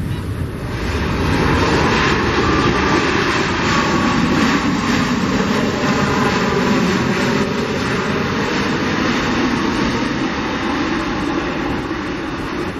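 Boeing 737 MAX 8's CFM LEAP-1B jet engines roaring through touchdown and rollout on a wet runway. The roar swells about a second in, holds loud and eases a little near the end.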